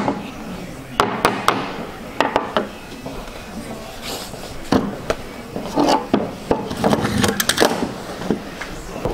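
Wooden stretcher frame with linen canvas being handled, turned over and set down on a table: a series of irregular wooden knocks and clatters, with the canvas rubbing.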